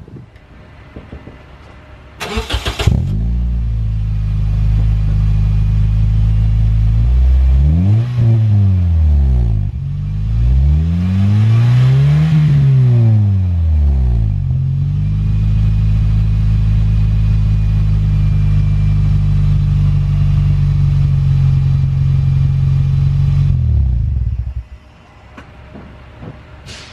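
First-generation Scion xB's four-cylinder engine starting through a newly fitted DC Sports axle-back exhaust. It settles to idle, is revved twice (a short blip, then a longer, higher rev), idles steadily again, and is switched off near the end.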